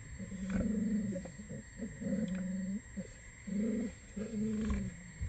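Red wolves vocalizing in the den: a string of four or five short, low, moaning calls, each under a second, with short pauses between them.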